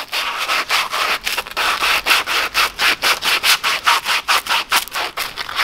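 Sandpaper rubbed quickly back and forth along a wooden hammer handle: a steady run of rasping strokes, about six or seven a second.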